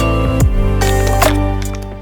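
Background music with a steady bass and a beat, fading down near the end.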